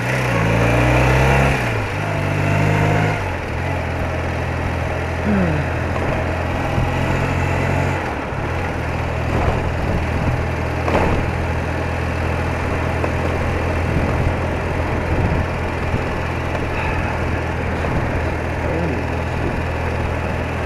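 BMW R80RT motorcycle's air-cooled flat-twin engine running under way, with wind and road noise. The engine note shifts in pitch a few times in the first eight seconds, then holds steady.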